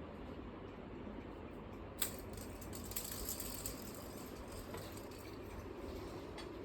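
A kitten at play: a sharp click about two seconds in, then a run of light clicks and rattles, over a steady low room hum.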